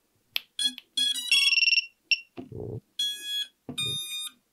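Power-up beeps from an iFlight Protek 35 cinewhoop as its battery is plugged in. The ESCs play a run of short electronic start-up tones through the brushless motors, climbing in pitch, then two longer tones, with a dull knock about halfway through.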